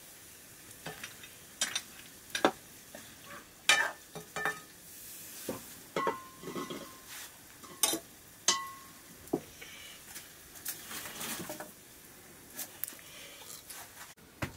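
Wooden spatula knocking and scraping against a black wok as cubed cocoyam and potatoes are stirred in oil, with a light sizzle from the frying. The knocks come irregularly, and a few ring briefly off the metal.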